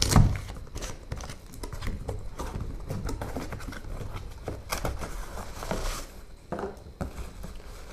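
Cardboard packaging being handled: an inner cardboard box is slid out of its retail box and its flaps are folded open on a wooden tabletop, with scattered light scrapes, taps and rustles.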